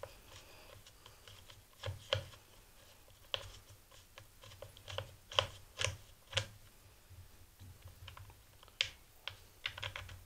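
Screwdriver working a T25 Torx screw out of a string trimmer's plastic engine housing: irregular light clicks and taps of the tool and plastic, a few sharper ones around the middle.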